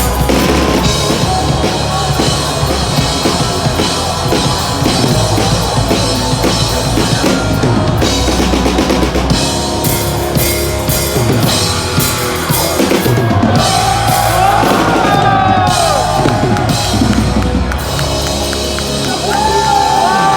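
Live hard rock band playing loudly: a full drum kit with bass drum, snare and cymbals driving under electric guitars and bass guitar. Wavering high notes ride over the band in the second half.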